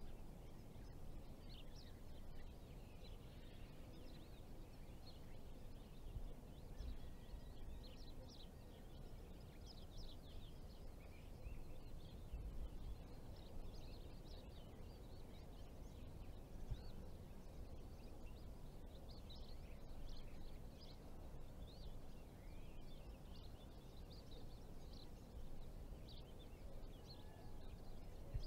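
Faint outdoor ambience of birds chirping and calling, many short high chirps throughout, over a low steady rumble.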